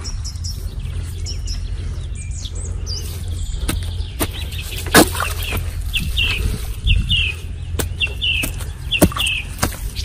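A hoe chopping into hard, dry soil, with sharp strikes every second or so, the loudest about halfway through. A bird calls with pairs of short, high chirps that repeat about once a second in the second half, over a steady low rumble.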